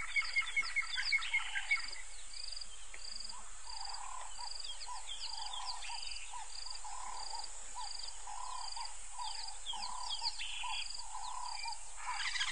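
Wild birds calling: many quick chirps, a short high note repeating about once a second, and a lower call repeating at a similar pace, with a fast pulsed trill that stops about two seconds in.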